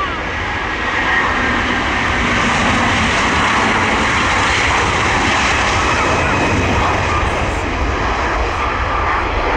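Airbus A330-200's two Rolls-Royce Trent 700 turbofans at takeoff thrust as the airliner rolls, rotates and lifts off. The jet noise is loud and steady, swelling over the first second or two.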